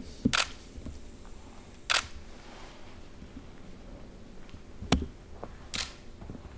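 Single-lens reflex camera shutters clicking, about four single shots spaced a second or more apart, over a low room hum.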